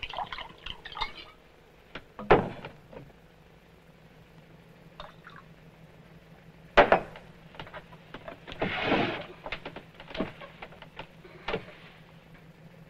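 Glass liquor bottle and small drinking glass clinking as a drink is poured, with a sharp knock about seven seconds in as the bottle is set down on a wooden cabinet top, and scattered small clinks and knocks around it.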